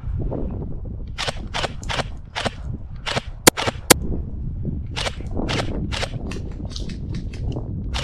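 Airsoft guns firing single shots in quick succession, short sharp pops at about three a second, starting about a second in, in two runs with a brief lull near the middle. Two sharper, louder cracks come about half a second apart just before the lull, over a steady low rumble.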